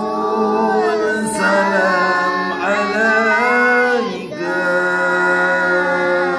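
A man and a group of boys singing together without instruments: a slow, drawn-out sholawat chant to the Prophet in long, sliding held notes, with short breaks for breath about a second in and around four seconds in.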